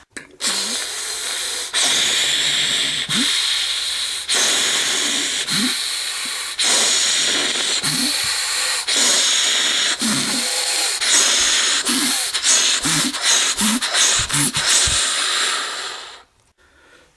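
A person hissing loudly through the mouth in a string of breathy bursts, about a second each at first, then quicker and shorter, stopping near the end.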